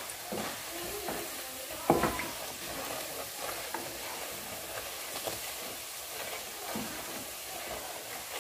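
Pinilipit (twisted glutinous rice dough) sizzling steadily as it fries in oil and caramelized sugar in a wok, stirred with a wooden spatula that scrapes and knocks against the pan. One louder knock comes about two seconds in.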